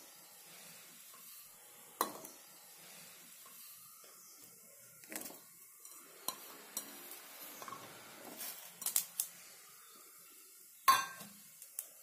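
Stainless-steel kitchenware clinking and knocking: a steel bowl against a small steel pot as cubed watermelon rind is tipped into the water. A few scattered knocks, a quick cluster about nine seconds in, and the sharpest knock about eleven seconds in.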